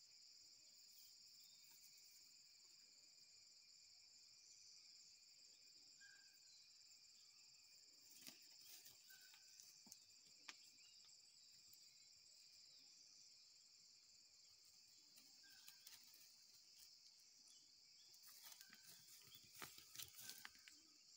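Faint steady chorus of insects buzzing high and continuously, with a few short bird chirps. Soft crackling rustles of a puppy's paws on dry pine needles and loose stones come about eight seconds in and again near the end.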